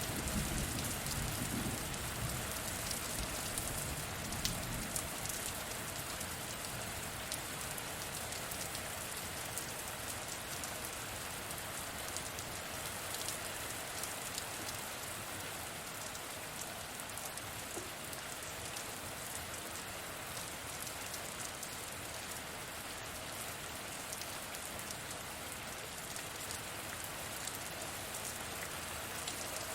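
Steady rain falling, with sharp ticks of individual drops. A low rumble of distant thunder sounds in the first few seconds and fades away.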